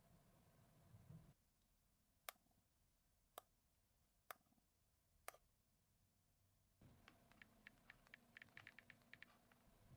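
Faint clicks near silence: four sharp single clicks about a second apart, then a quick run of many small clicks near the end.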